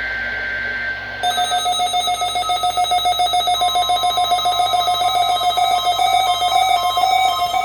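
Several weather radios alerting at once for a weekly NOAA Weather Radio test. Steady high data tones give way about a second in to the receivers' fast, steady alarm beeping. A few seconds later the broadcast's long, steady warning alarm tone joins in.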